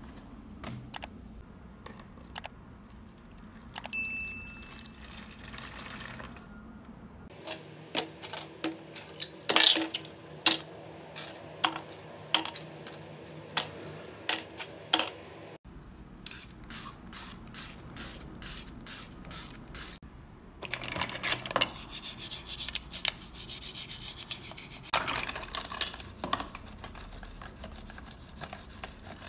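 Small plastic model-car parts clicking and clattering as they are handled and dropped into a plastic tub. After a break about halfway in comes a run of about ten short, even bursts, each under half a second. Then from about two-thirds in, a toothbrush scrubbing the wet black plastic chassis in water.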